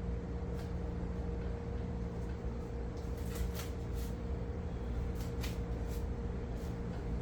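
Scattered sharp clicks and knocks of metal parts being handled as a stiff fitting on a gas forge burner is worked at to get it open, over a steady low hum.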